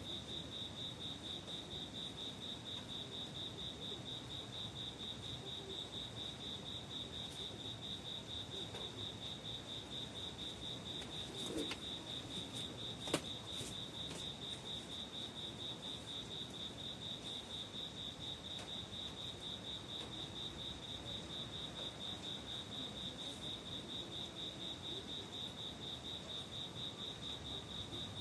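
Crickets chirping steadily in a high, evenly pulsed trill, with a single sharp click about thirteen seconds in.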